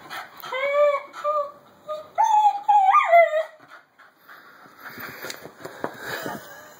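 Miniature schnauzer whining: a short high whine about half a second in, then a longer one around two to three seconds in that rises in pitch and falls away. The dog is worked up over a cat. Rustling and a few light knocks follow.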